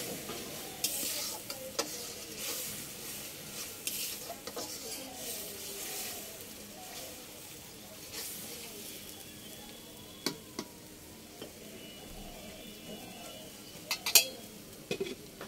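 Metal ladle stirring and scraping spice paste as it sizzles in a metal karahi over a wood fire: the masala being fried down for a fish curry. The stirring strokes come every second or so in the first half, then only the sizzle goes on, broken by a few sharp metal clanks, the loudest about 14 seconds in.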